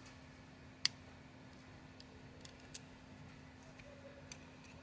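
A few small, sharp metal clicks as a screw and screwdriver are handled against a Penn Jigmaster 500S reel's side plate during reassembly. The loudest click comes about a second in.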